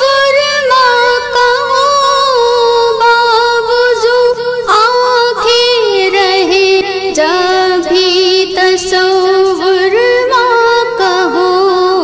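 Female voice singing a long wordless melodic passage in an Urdu devotional song, with a wavering vibrato, the melody stepping down in pitch about halfway through.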